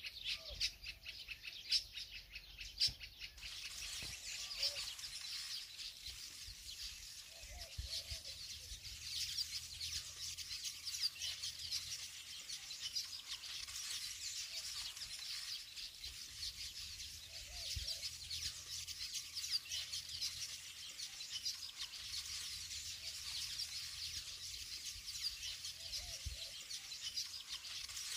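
Many small birds chirping continuously in the background. A few sharp clicks of a spoon against the glass bowl come in the first three seconds.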